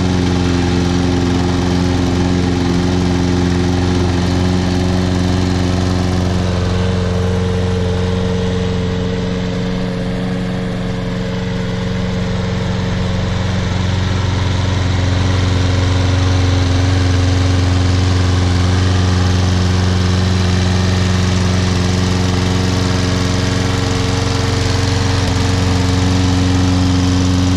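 Toro Personal Pace Recycler (Model 20332) walk-behind mower's Briggs & Stratton 7.25 gross-torque engine running steadily at a constant speed, with a slight dip in loudness about ten seconds in.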